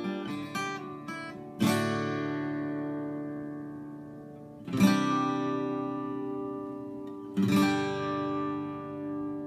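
Steel-string acoustic guitar with new D'Addario EXP19 strings. A few quick picked notes are followed by three strummed chords, each left to ring out and fade.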